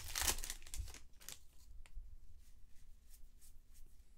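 Foil wrapper of a baseball card pack crinkling and tearing as it is opened, densest in the first second and a half, then fainter rustles as the cards are handled.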